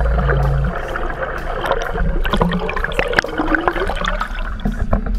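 Water gurgling and sloshing, heard underwater, as a hooked marlin is released at the surface. A low steady hum stops about a second in, followed by scattered clicks and splashes as the water is churned into bubbles.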